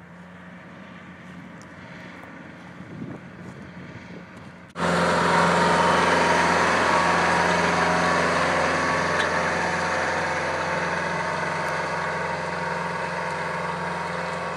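Kioti compact diesel tractor running steadily as it pulls a cultipacker over freshly rototilled soil. It is faint at first, then suddenly much louder and closer about five seconds in, and it stays steady after that.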